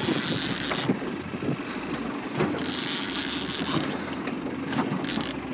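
Boat motor running steadily at trolling speed, with wind rumbling on the microphone. Two bursts of hiss, about a second each, come at the start and in the middle.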